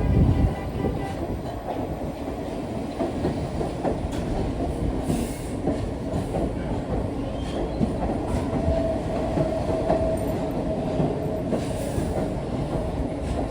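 R46 subway train running on the rails, with a steady low rumble and irregular clatter of wheels over rail joints. A thin steady squeal comes in for a couple of seconds past the middle, and a heavy low thump lands right at the start.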